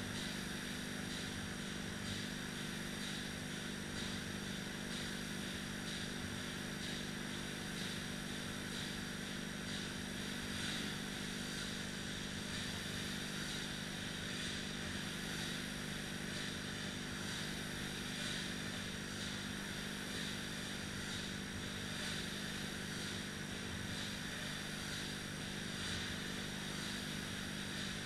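Two air-resistance rowing machines' fan flywheels whirring steadily, with a faint whoosh every second or two as the strokes are pulled.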